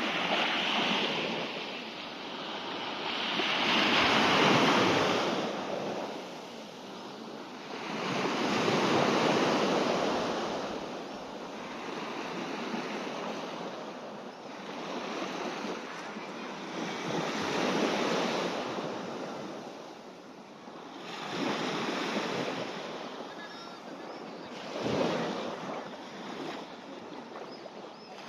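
Sea waves breaking and washing up a beach, the surf swelling and falling back every few seconds.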